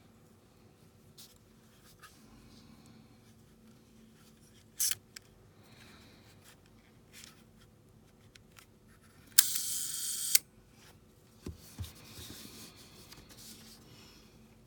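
Quiet handling noises: a sharp click about five seconds in, a loud one-second hiss that starts and stops abruptly about halfway through, then a couple of low knocks and soft rustling.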